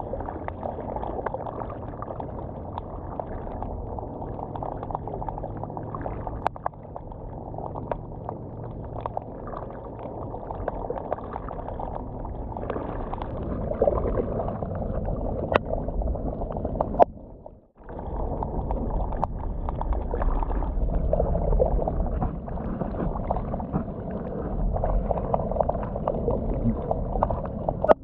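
Underwater recording of a dense, low pulsing rumble, which the uploader guesses is black drum calling all around. It cuts out briefly past the middle, then resumes.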